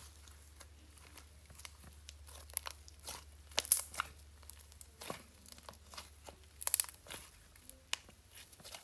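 Soft slime being squeezed and stretched by hand, giving irregular sticky clicks and crackles, with the loudest clusters a little under halfway in and again about three quarters in.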